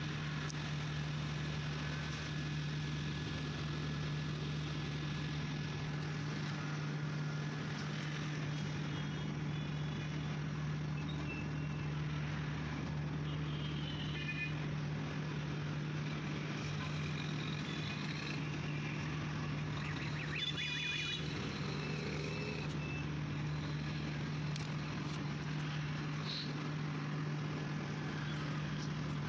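A steady low hum that does not change over the whole stretch, over faint street background noise, with a few brief high chirps or beeps around the middle.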